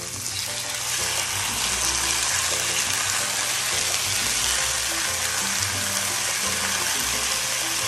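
A marinated spatchcocked chicken sizzling in a cast-iron skillet preheated to 500 °F with a little oil. A steady hiss swells in during the first second and holds.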